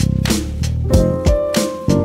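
Instrumental background music with a drum beat over sustained bass and melodic tones.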